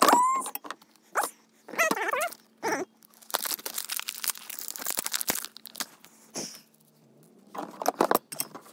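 Plastic parts of a poly dump cart being handled and bumped together: rustling and a run of clicks, with short high squeals right at the start and again about two seconds in.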